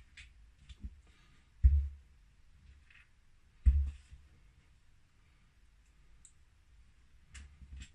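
Small plastic kit parts being handled on a work surface: scattered light clicks, with two louder knocks about two seconds apart.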